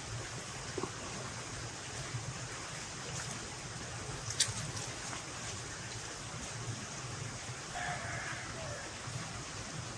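Steady hiss of rain, with a chicken calling briefly about eight seconds in and a single sharp click about halfway through.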